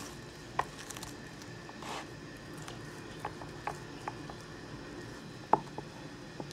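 Knife slicing through a rack of barbecued spare ribs on a wooden cutting board: faint soft cutting with scattered light clicks and taps, the sharpest a little over five seconds in.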